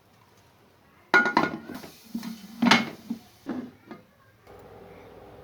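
Metal cookware clattering: a pan or pot and its lid knocked and set down, with several loud clanks and clinks over about three seconds. A steady low hum starts near the end.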